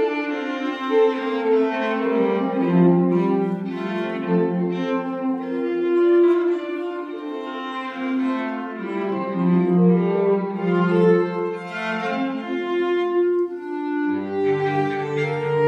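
Violin and cello duo playing together, with sustained bowed notes in both instruments. Near the end the cello moves down to low notes.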